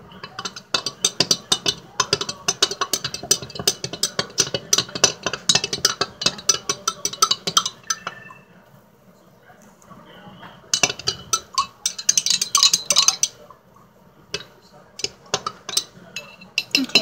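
A spoon stirring a smoothie in a glass mason jar, clinking rapidly against the glass several times a second. The stirring stops about eight seconds in, starts again for a couple of seconds, and a few scattered clinks follow near the end.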